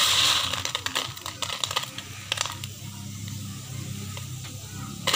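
Dry, sun-dried cooked rice grains rustling and clicking in a plastic basin as a hand stirs and scoops through them, loudest at the start, over a steady low hum.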